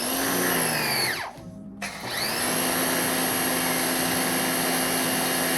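Small electric pressure washer's motor running, winding down to a brief stop just over a second in, then spinning back up and running steadily with a steady whine.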